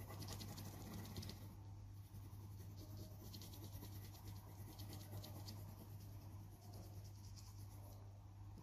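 Coloured pencil scratching on paper in quick back-and-forth strokes, faint, coming in a few runs with short pauses between them. A steady low hum runs underneath.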